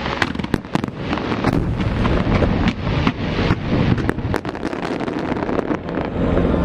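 Fireworks going off in a dense barrage: a rapid, unbroken run of bangs and crackles over a continuous rumble.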